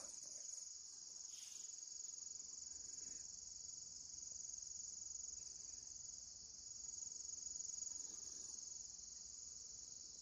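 Faint, steady high-pitched insect chorus, a cricket-like trill.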